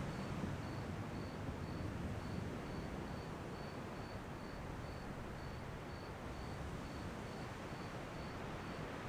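Ocean waves washing steadily on the shore at night, with a faint insect chirping evenly about three times a second.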